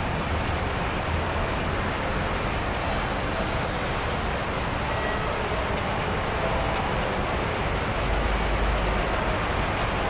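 Steady background din of a railway station, with a low rumble swelling near the end.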